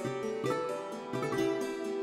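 Instrumental background music: a melody of short, separate notes over sustained tones.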